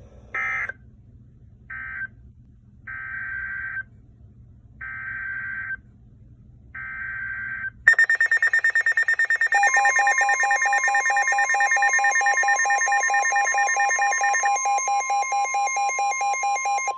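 NOAA Weather Radio alert signal. First come several short, buzzy digital-data bursts about a second apart (the SAME header that codes the next warning). Then, about eight seconds in, a loud rapidly pulsing electronic alarm starts, and the steady 1050 Hz weather-radio warning tone joins a moment later.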